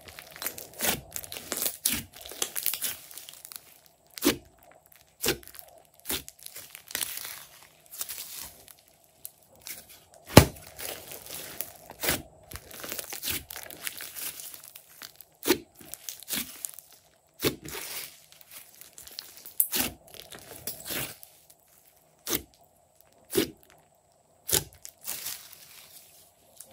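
Thick clay-mixed slime being squeezed, folded and stretched by hand, giving irregular sticky crackling and sharp pops.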